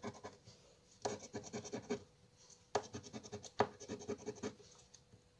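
Scratch-off lottery card being scratched with a small round scraper, the latex coating rubbed away in quick short strokes. The scratching comes in three bursts with short pauses between them.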